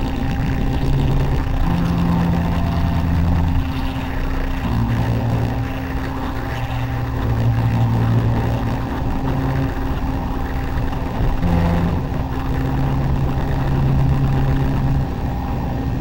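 Improvised noise music from live electronics and turntable: a dense, steady wall of noise over low held tones that step to a new pitch every second or two.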